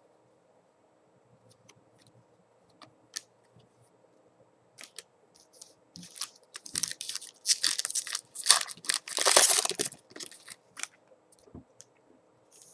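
Foil wrapper of a trading-card pack crinkled and torn open: a dense crackling rustle starts about six seconds in, is loudest for a couple of seconds, then dies away. Before it come a few faint ticks of cards being handled.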